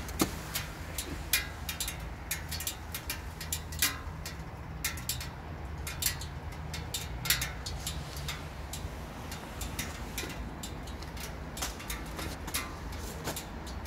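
Honda VTX 1800's big V-twin idling through Cobra aftermarket exhaust pipes, a steady low rumble. Irregular sharp clicks sound over it throughout.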